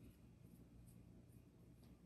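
Near silence: faint room tone with a few soft ticks.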